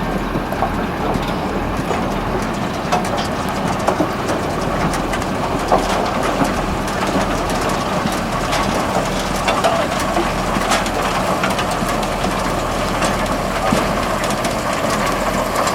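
A tractor and a Reekie Cleanflow 2000 trailed potato harvester running steadily, with constant irregular clattering and knocking as potatoes, clods and stones tumble over the harvester's webs.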